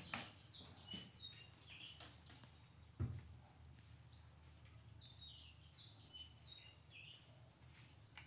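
A songbird singing a short phrase of quick high chirps, repeated twice, faint against the background. Scattered soft taps and one louder low thump about three seconds in.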